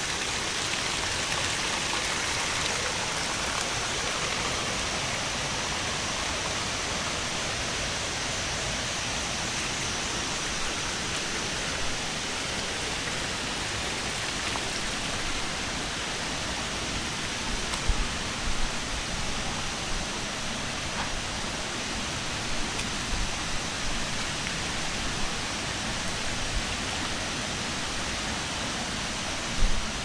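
A waterfall's steady rush of falling and splashing water, an even hiss across all pitches. A few brief low thumps come in during the second half.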